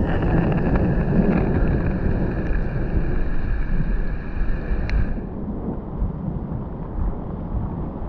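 Wind buffeting the microphone and mountain bike tyres rolling over a wet gravel trail: a loud, steady rumble. A fainter high hiss stops about five seconds in.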